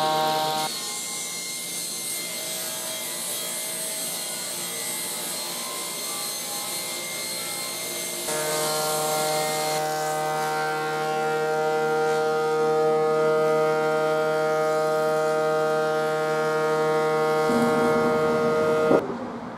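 Old stationary woodworking machines running in turn: first a sliding table saw, then a planer-thicknesser with a board passing through, each a steady motor whine with cutting noise. The sound changes abruptly at the cuts between machines, and a sharp knock comes near the end.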